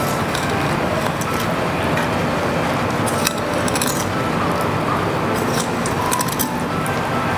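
Filleting knife slicing along the backbone of a scaled fish, the blade crackling and scraping through scales and rib bones in two short bursts, about three seconds in and about six seconds in, over a steady background noise.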